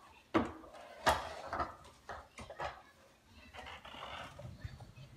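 Plastic ride-on toy rolling over a hardwood floor, its wheels and body knocking and clattering: five sharp knocks about half a second apart in the first three seconds, then a faint rolling rumble.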